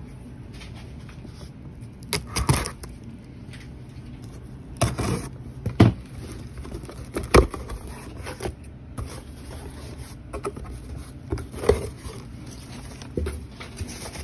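A cardboard shipping box being handled and opened by hand: scattered scrapes and knocks of cardboard, a second or more apart.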